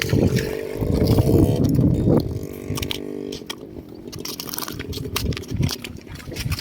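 A small engine running steadily, its pitch rising briefly about a second in. Gusts of wind buffet the microphone during the first two seconds.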